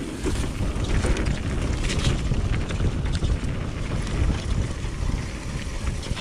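Wind rushing over the microphone and the rumble of a mountain bike rolling fast down a dirt trail, with scattered sharp rattles and knocks from the bike over the bumps.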